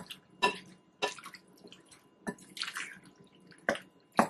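Wooden spoon stirring salted, sugared mango chunks in a glass bowl: irregular wet squelching strokes, one every half second or so, with light clicks of the spoon against the glass.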